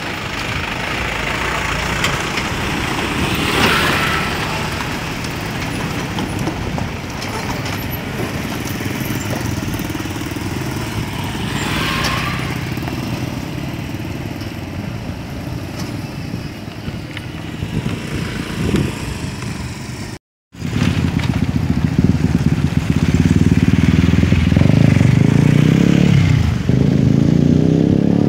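Motorcycle engines and road traffic running steadily as vehicles pass close by. From about 20 s in, a nearby motorcycle engine is louder, and near the end it revs up, rising in pitch.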